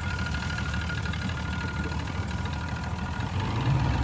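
Outboard motor (Mercury) running steadily, with a thin steady high whine, growing louder about three seconds in.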